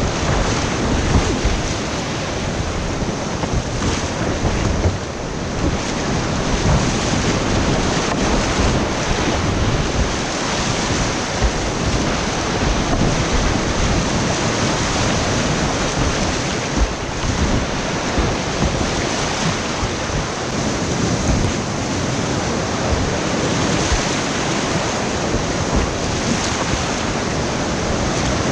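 Whitewater rapids rushing in a steady, loud wash of water noise, with wind buffeting the microphone.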